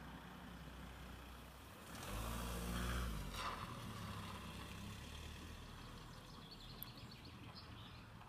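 A motor vehicle's engine passing, swelling about two seconds in and then fading, over a low steady rumble.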